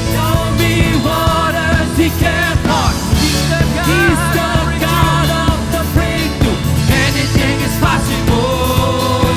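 A church worship band playing a rock-style worship song with drums and bass, with voices singing over it.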